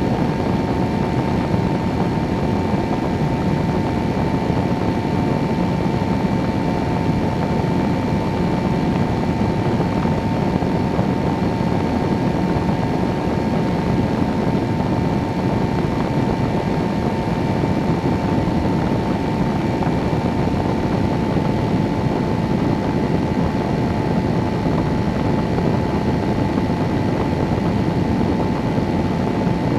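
Weight-shift microlight trike's engine and pusher propeller running steadily in cruise flight, a constant drone that holds one pitch throughout, mixed with rushing wind.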